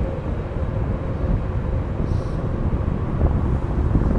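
Boeing 767-300 jet engines at taxi power as the airliner turns onto the runway: a low, steady rumble with a faint steady whine. A brief hiss comes about two seconds in.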